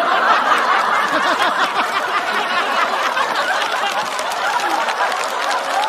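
A large studio audience laughing and clapping together without a break, in reaction to a joke.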